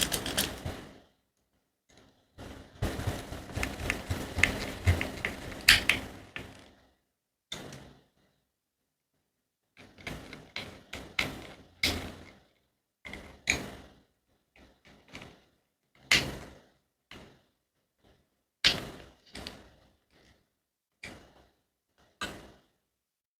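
Handling noise from a small hair trimmer being reassembled: irregular sharp clicks and taps of small plastic and metal parts, with a few seconds of continuous rattling and scraping a few seconds in.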